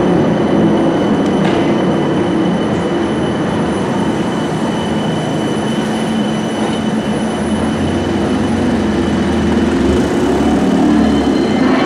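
A West Midlands Metro CAF Urbos 3 tram running past at low speed on street track: a steady rumble of wheels on rail, with a thin high squeal over it.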